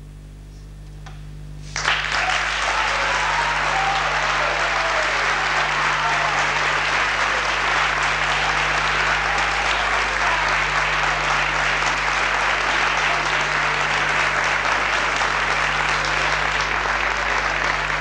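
Audience applause breaks out suddenly about two seconds in, after the last piano notes have faded, and goes on steadily. A low steady electrical hum runs underneath.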